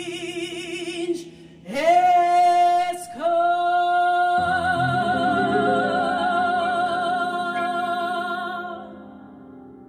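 A woman's solo voice sings the closing phrases with piano. She holds a long final note with wide vibrato, an upright piano chord comes in under it and rings on, and her voice stops shortly before the end, leaving the piano sounding.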